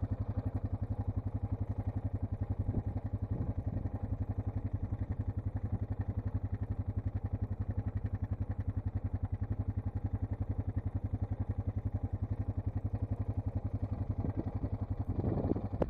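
A small vehicle engine running steadily at low speed, with a fast, even pulsing.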